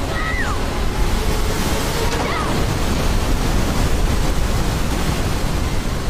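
Loud, steady rush of churning whitewater at the top of a waterfall, with two short cries from a woman, one just after the start and one about two seconds in.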